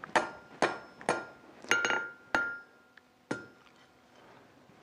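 Hand hammer striking a hot steel rod on an anvil, about seven blows in the first three and a half seconds with two in quick succession near the middle, each leaving the anvil ringing with a clear tone. The blows are forging a curl into the rod's end.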